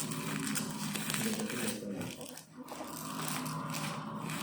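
Crinkling and rustling of packaging being handled and opened, with irregular small crackles and a short lull about two and a half seconds in.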